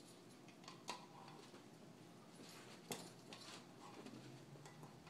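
Near silence: room tone with two faint short clicks about two seconds apart and a few soft rustles.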